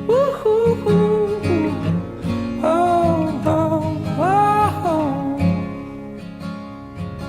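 Background song: a singing voice over acoustic guitar, growing quieter towards the end.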